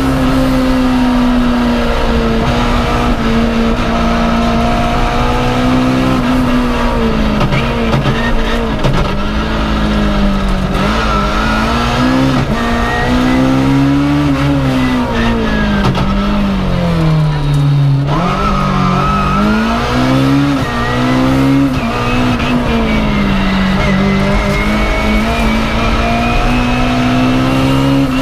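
BMW M3 E30 rally car's S14 four-cylinder engine heard from inside the cabin, driven hard: the engine note climbs and falls again and again as it accelerates, shifts gear and slows for corners, with a deep dip about eighteen seconds in.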